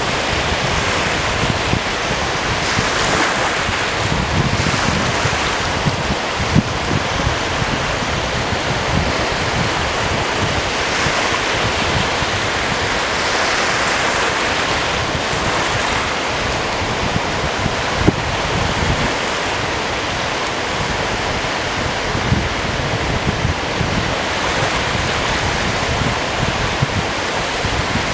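Steady rush of small lake waves washing over a shallow beach, with wind buffeting the microphone as a fluctuating low rumble. A couple of brief sharp ticks stand out, one about a third of the way in and another past the middle.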